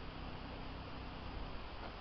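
Steady hiss of storm wind, with a low rumble of wind on the microphone.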